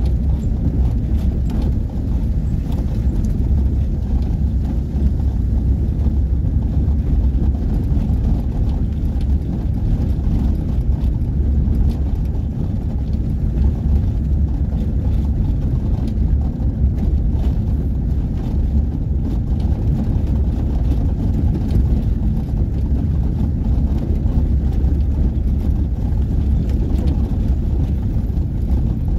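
Steady low rumble of a vehicle driving over a cobblestone street: engine and tyre noise over the stones, with many small rattles.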